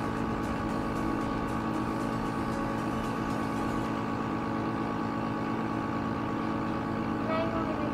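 A steady machine hum of many unchanging tones over a low rumble, holding one level throughout.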